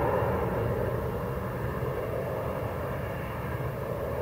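Dassault Falcon 2000EX business jet's twin turbofans heard from the ground as it climbs away after takeoff: a steady jet rumble with a faint whine in it, slowly fading as the aircraft recedes.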